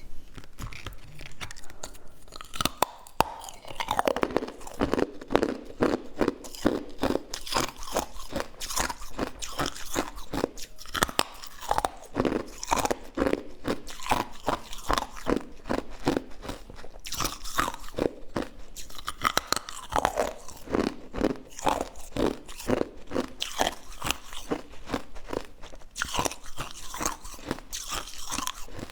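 A person biting and chewing crunchy food, with a quick, dense string of sharp crunches throughout.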